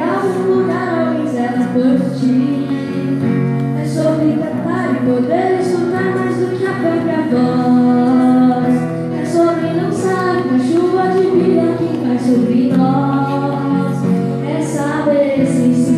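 A boy singing a slow song in phrases over steady musical accompaniment.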